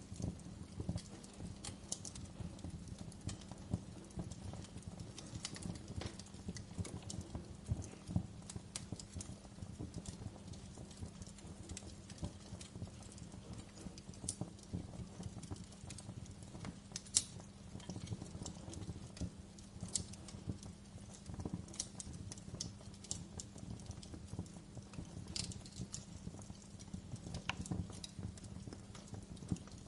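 Wood fire in a fireplace crackling: irregular sharp pops and snaps over a low, steady rumble of the burning flames, with one louder pop a little past halfway.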